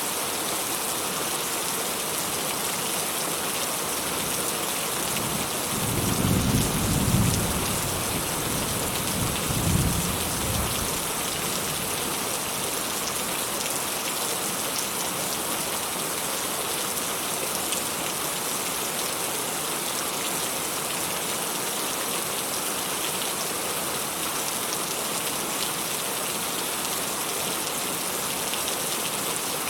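Steady rain falling on a surface, with a low roll of distant thunder that swells about six seconds in, peaks twice and fades by about eleven seconds.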